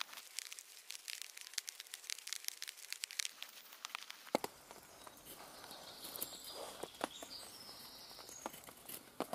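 Bushtool knife shaving thin curls off a split wooden stick: a run of short, crisp scraping strokes at an irregular pace, each blade pass along the grain making a feather stick for lighting a fire.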